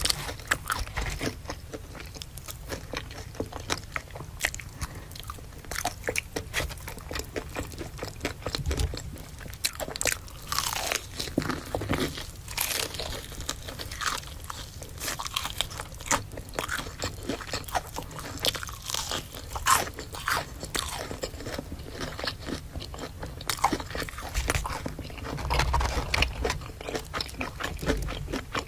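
A person biting and chewing crispy food with many irregular crunches, close to the microphone.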